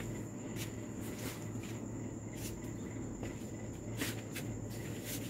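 Steady high-pitched insect trill, typical of crickets at night, over a low steady hum. Now and then there are short crackling clicks as fingers handle and peel the adhesive backing of a small metal car emblem letter.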